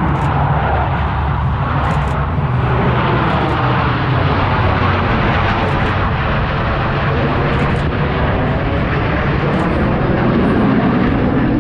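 Loud, steady jet engine noise from Blue Angels jets flying over.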